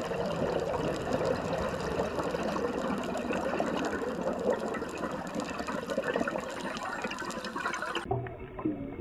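Underwater bubbling and rushing water during a scuba dive, heard through the camera's housing. About eight seconds in it cuts abruptly to a duller, thinner sound with a few faint wavering tones.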